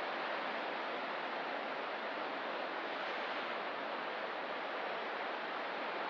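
Steady wash of ocean surf: an even rushing hiss with no separate wave breaks standing out.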